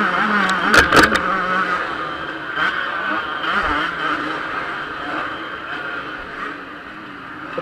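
Yamaha YZ125's 125 cc single-cylinder two-stroke engine heard from onboard, revving hard under load with its pitch wavering as the throttle works, and a few sharp knocks about a second in. The engine eases off near the end.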